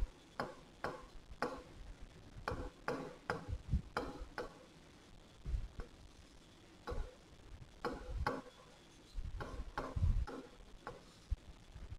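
Pen tip on a writing board during handwriting: a string of short, irregular taps and brief scratchy strokes, a few a second.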